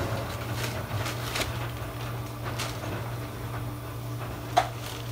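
Room tone in a restaurant work area: a steady low hum with a few light clicks and knocks as items are handled, and a sharper click shortly before the end.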